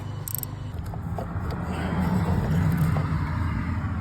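Old engine oil draining from a BMW M340i's oil-pan drain hole into a catch pan, a splashing, hissing pour that grows louder about two seconds in, over a steady low hum.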